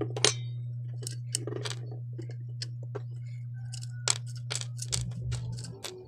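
Irregular sharp clicks and taps of hands handling a ceiling fan's wound stator and plastic motor housing, over a steady low hum.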